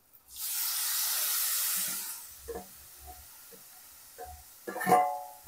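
Raw squid pieces hit hot oil and masala in a pressure-cooker pan and sizzle loudly for about two seconds, then die down. A metal spoon then scrapes and knocks against the steel bowl and pot, with a ringing clink near the end.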